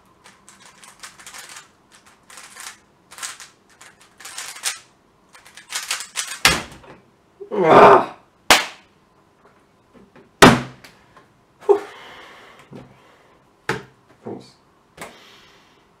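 Magnetic speedcube (QiYi Valk Power M) being turned very fast in a speedsolve: a quick run of plastic clicking turns for about six and a half seconds. Then come a few loud knocks and thuds on the desk as the solve ends and the cube is put down, with a louder noisy burst about eight seconds in.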